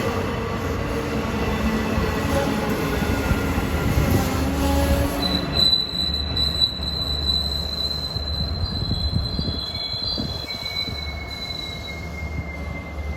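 Diesel passenger train moving along the rails, a low engine rumble and wheel-on-rail noise, with a high, steady wheel squeal that starts about five seconds in and fades out about seven seconds later.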